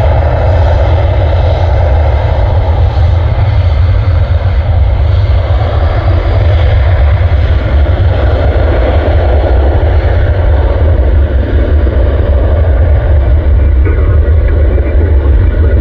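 Jet aircraft engines running: a loud, steady roar with a heavy low rumble, easing slightly near the end.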